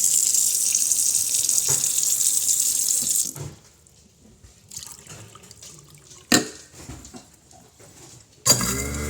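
Kitchen sink faucet running water into the sink, shut off a little over three seconds in. After that come a few small clicks, one sharp click, and near the end a loud steady hum starts up.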